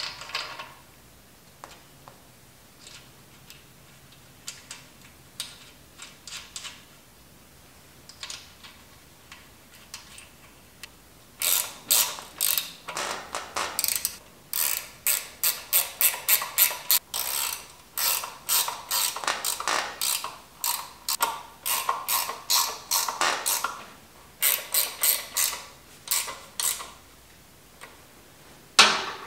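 Hand ratchet clicking as a fastener at a motorcycle's front axle is turned. Scattered single clicks at first, then after about eleven seconds fast runs of clicks, stroke after stroke, stopping shortly before the end.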